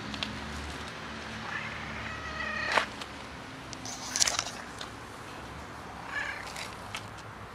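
Tabby cat meowing twice, the first call the longer, with a sharp click about three seconds in and a brief scuffing noise about four seconds in.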